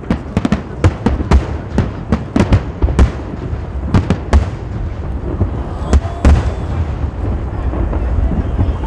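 Aerial fireworks bursting in quick succession: sharp bangs and crackles over a low rumble, coming thickest in the first half and thinning out after about four and a half seconds.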